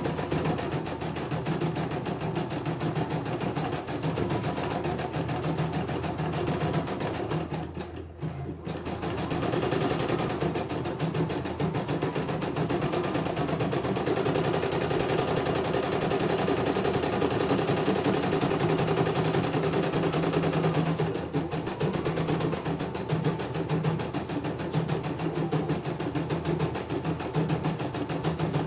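CNY E900 computerised embroidery machine stitching a design: a fast, steady needle clatter as the hoop carriage steps the fabric under the needle, dipping briefly about eight seconds in.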